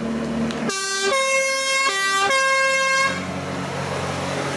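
Two-tone emergency horn sounding a low note and a high note in turn, twice over, for about two and a half seconds, starting under a second in. Beneath it and after it, the forklift's engine runs with a steady hum.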